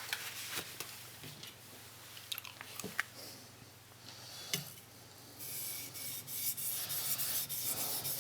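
Gritty rubbing strokes on a wet Tajima natural sharpening stone with mud on it. For the first five seconds there are only a few light knocks. From about five seconds in, steady back-and-forth strokes follow at about three a second.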